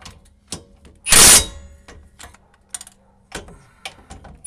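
Hand ratchet tightening the rear wheel bearing hub bolts: a short, loud run of ratchet clicking about a second in, with scattered single clicks and knocks of the tool on the bolts.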